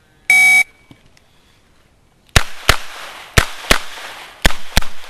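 An electronic shot timer gives a short start beep. About two seconds later a revolver fires six shots in three quick pairs, the shots in each pair about a third of a second apart, each one echoing off the range.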